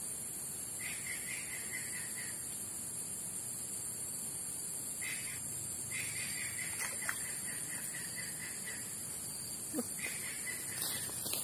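Steady high-pitched insect drone with a rapid pulsing call repeated three times, each run lasting one to three seconds, and a few light clicks later on.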